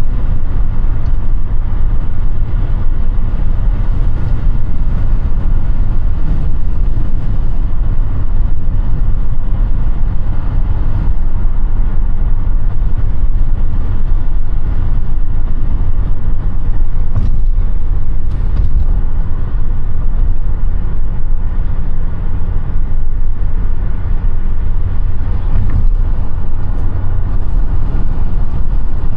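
Audi A5 (8T) driving at a steady pace: a continuous low rumble of engine and road noise with no marked changes.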